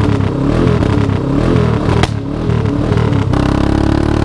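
An engine revving, its pitch rising and falling in repeated blips, with a sharp click about two seconds in. It settles to a steadier held pitch near the end.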